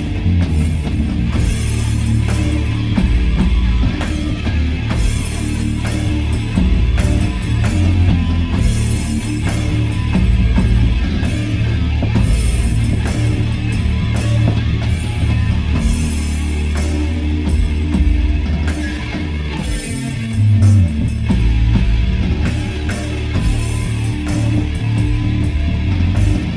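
Rock band playing a heavy song at full volume: electric guitar and bass over drums, with cymbal hits every second or two.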